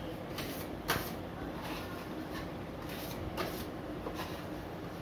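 Metal putty knife scraping across a plastered wall in a series of short strokes, about two a second, the sharpest about a second in.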